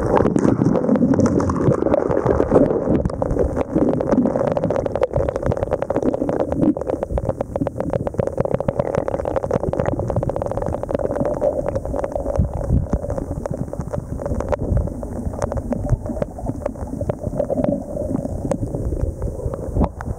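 Creek water heard through a submerged camera: a muffled rumbling and gurgling, with many small clicks and knocks as a gloved hand moves gravel on the creek bottom.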